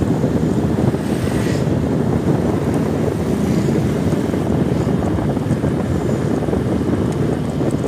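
Steady, loud low rumble from massed truck-mounted subwoofer sound systems, overloading the microphone into a dense bass roar.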